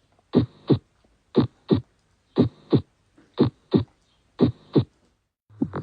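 Heart sounds: a regular lub-dub, the first and second heart sounds about a third of a second apart, repeating about once a second with nothing heard between the pairs. Near the end a different, busier heart sound begins.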